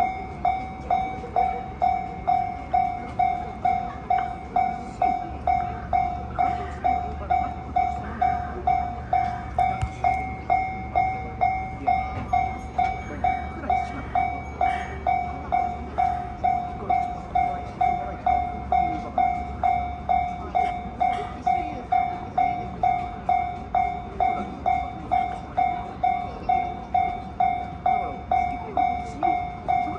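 Japanese railway level crossing alarm: an electronic bell ringing over and over at an even pace, a little under two strikes a second. A low rumble sets in about five seconds in.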